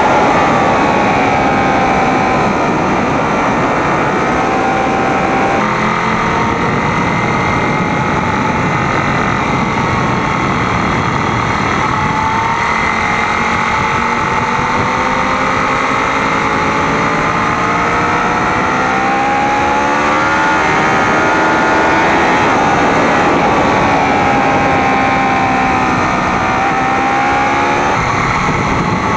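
Sport motorcycle engine heard from an onboard camera on the bike, over steady wind rush: the engine note climbs under acceleration, drops suddenly at gear changes and falls away when slowing for corners.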